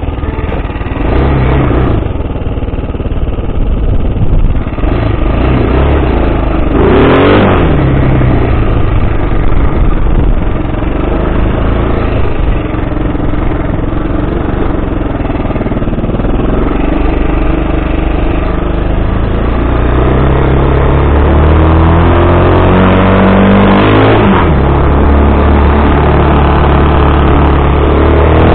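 Quad bike's 250 cc engine running under way, its pitch rising and falling as the throttle is worked: revs climb about seven seconds in and again near the end, then drop sharply.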